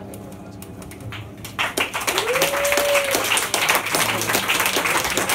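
Small audience applauding, starting about a second and a half in, with one long whoop.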